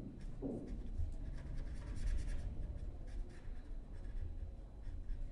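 Writing strokes scratching on paper, with a steady low hum underneath.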